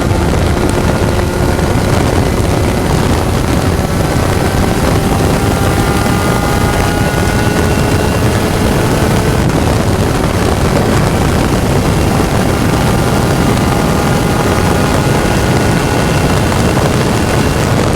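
Onboard sound of a Spec Racer Ford race car at speed: the engine runs hard under heavy wind and road noise, its pitch rising slowly and dropping back about ten seconds in.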